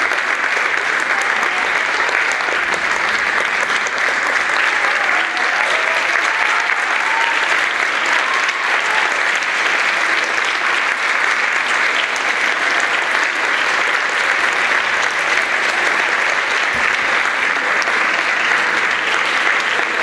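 A theatre audience applauding: dense, steady clapping from many hands at the dancers' bow.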